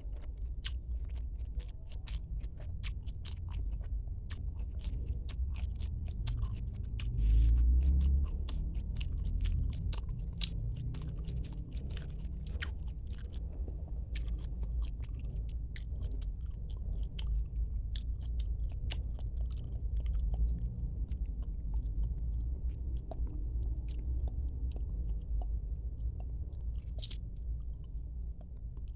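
Close-up mouth sounds of someone chewing and biting squid: a dense run of sharp, crunchy clicks over a steady low rumble, thinning out in the second half, with one loud low thump about seven seconds in.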